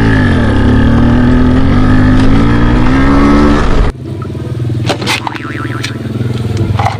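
A vehicle engine running, its pitch dipping at first and then climbing slowly as it revs up, cut off abruptly about four seconds in; quieter clicks and knocks follow.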